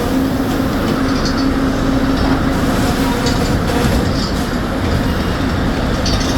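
Sawmill machinery running: a loud, steady industrial din with a steady hum and scattered clattering.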